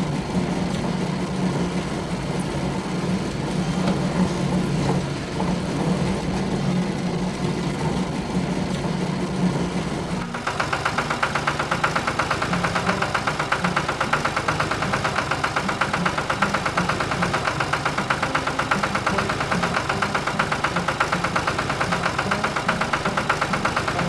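A steady machine hum, then about ten seconds in a sudden switch to a cartoon truck engine running with a rapid, even chug.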